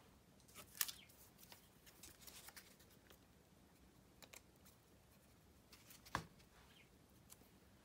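Near silence with faint handling sounds of small paper pieces and a glue bottle on a tabletop: a few soft taps and rustles, the sharpest tap about six seconds in.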